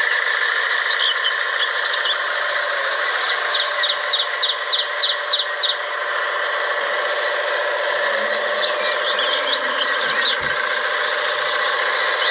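The small electric motor and plastic gears of a toy excavator whine steadily. About four seconds in there is a quick run of short, high squeaks, with a few more near the end.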